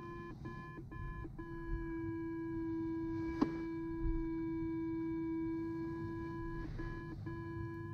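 A glider's cockpit audio variometer sounds a steady, pure electronic tone, broken by a few brief gaps in the first second and a half and again near the end, over a faint low rumble. A single short click comes about three and a half seconds in.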